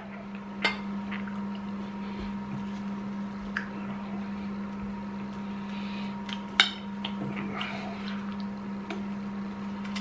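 Someone chewing sticky, gooey microwaved marshmallow: soft wet mouth sounds and a few light clicks, the sharpest about two-thirds of the way through, over a steady low electrical hum.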